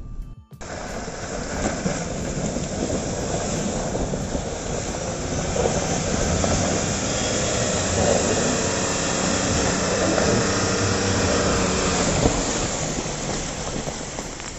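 Nissan Patrol 4x4's engine running hard under load as it churns through a deep mud hole, with tyres spinning and muddy water splashing. The sound builds as it passes close by and tails off near the end.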